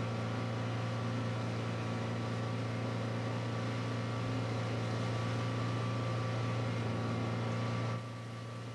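Boat motor running at a steady speed, a constant low drone that drops slightly in level near the end.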